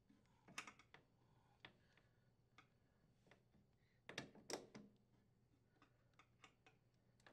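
Faint clicks and taps of hands handling the snowblower's new auger blades and fitting the side nuts and bolts, in two short clusters about half a second and four seconds in, with scattered single ticks between.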